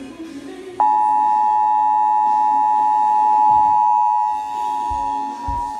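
Emergency Alert System attention signal: a loud, steady two-tone alert tone (853 and 960 Hz sine waves together) that starts about a second in and holds.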